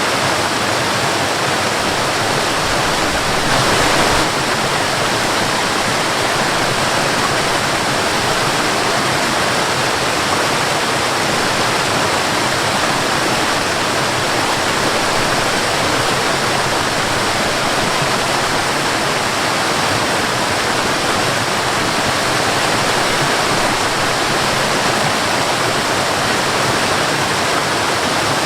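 Waterfall: a steady, dense rush of falling water, with a brief louder swell about four seconds in.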